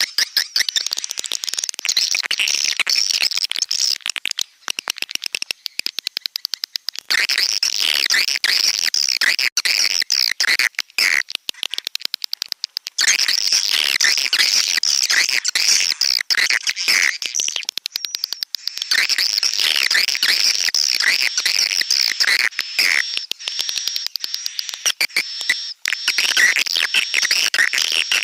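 Recorded swiftlet calls played as a lure track: dense, high-pitched twittering chirps with repeated stretches of rapid clicking.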